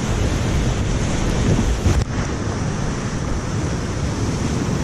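Steep mountain-river whitewater rapid rushing loudly around a kayak, heard from the boat itself. A brief knock about two seconds in.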